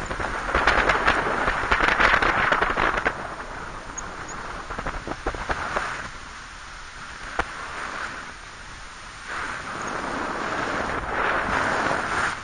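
Wind rushing over the microphone of a paraglider in flight, swelling and easing in gusts, with crackling clicks in the louder stretches.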